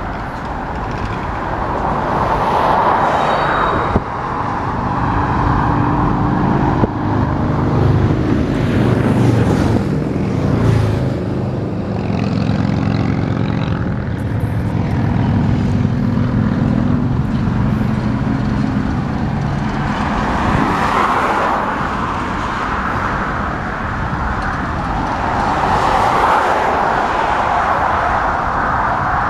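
Road and wind noise of a moving car, rising and falling in waves. A low engine drone joins it about five seconds in and fades out around two-thirds of the way through.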